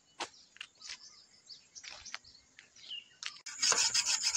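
Faint scattered bird chirps and small clicks. About three seconds in, a louder, fast, steady rasping scratch starts suddenly.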